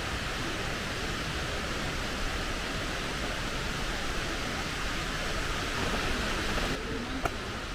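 Steady rush of water from a waterfall. Shortly before the end the sound drops off abruptly, followed by a single short click.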